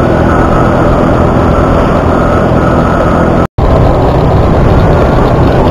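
Heavy wind noise buffeting a helmet-mounted lavalier mic on a moving motorcycle with the helmet visor open, loud and steady, with the motorcycle engine underneath. The sound drops out completely for a split second about halfway through, then the same wind and engine noise carries on.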